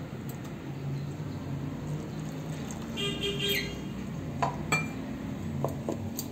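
Light clicks and taps of a plastic mixer-grinder jar lid being handled, over a low steady hum.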